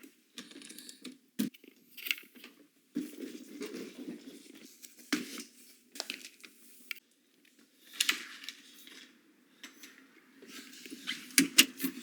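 Things being handled and moved about: irregular rustling with scattered clicks and small clatters, the sharpest knocks about a second and a half in, near five and six seconds, and a cluster near the end.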